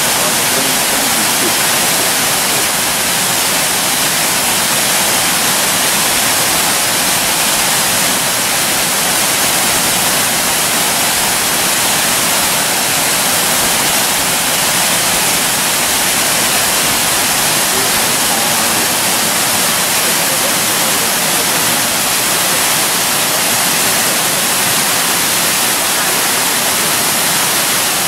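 Kuang Si waterfall's cascades pouring into pools: a loud, steady rush of falling water.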